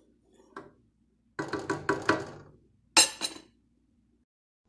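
A wooden spoon clattering against a metal cooking pot: a run of knocks and clinks about a second and a half in, then one sharp knock about three seconds in, as the spoon is tapped on the pot and lifted out of the sauce.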